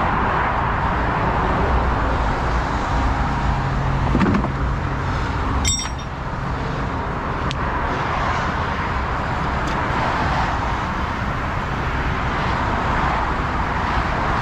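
Steady motorway traffic noise with a heavy engine running underneath, and a single sharp metallic clink about six seconds in.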